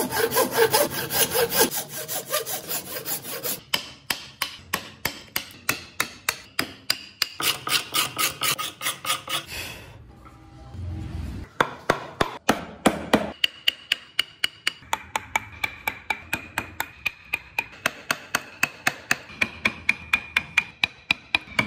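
Hand tools cutting wood: fast, steady strokes of a toothed saw blade, a short pause about ten seconds in, then a long run of quick, evenly spaced chisel strokes, about four a second.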